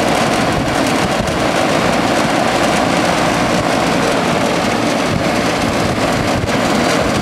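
Trane XB1000 3-ton central air conditioner condenser running, its new fan motor spinning the fan at full speed: a loud, steady rush of air blowing up through the top grille.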